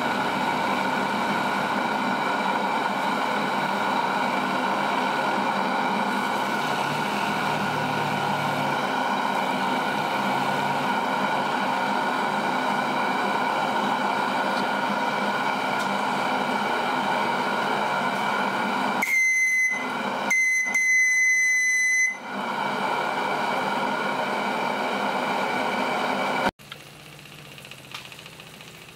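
Model steam plant with a gas-fired boiler running: a steady rushing sound with a held pitch. About two-thirds through comes a whistle blown twice in short blasts. Near the end the rushing cuts off suddenly, leaving a much quieter running sound.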